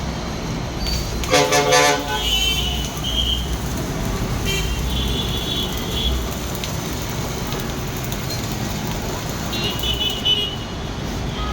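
Road traffic rumbling steadily, with a vehicle horn sounding once, briefly, about a second in. Short high-pitched tones come and go over it a few times.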